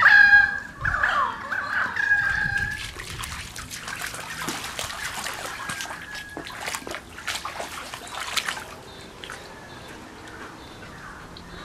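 Bird calls overhead, loud falling cries for the first couple of seconds. Then a husky splashes and moves about in the water of a shallow plastic wading pool for several seconds, dying away near the end.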